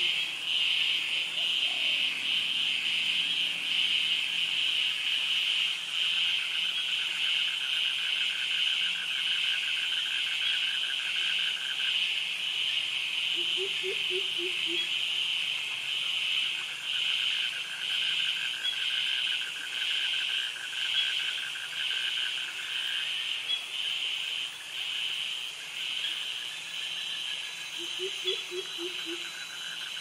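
Loud, continuous high-pitched chorus of tropical cicadas and crickets with a slight pulsing. A second, lower trill joins for several seconds, twice. Three times, a short run of four or five quick, low calls comes from another animal.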